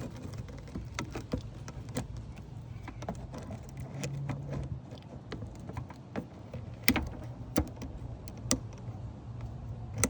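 Irregular clicks and taps of a plastic heater-hose quick-connector and its lock being worked by hand, with three sharper clicks in the second half, over a low steady hum.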